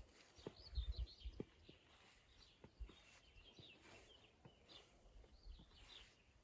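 Faint birdsong: small songbirds twittering in quick, high, warbling phrases, with a few low thumps and clicks underneath.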